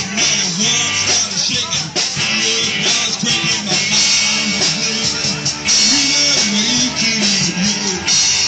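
Rock band playing live: electric guitars over a drum kit, with a moving melodic line in the mids, loud and continuous.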